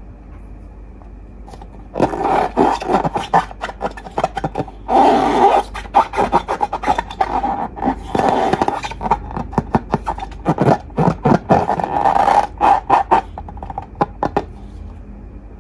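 Slime being squeezed and worked by hand: a dense, irregular run of wet crackles and clicks that starts about two seconds in and dies away near the end.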